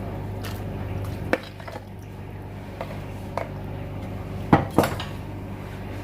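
Kitchen utensils clinking and knocking against dishes: a few scattered knocks, the two loudest close together about four and a half seconds in, over a steady low hum.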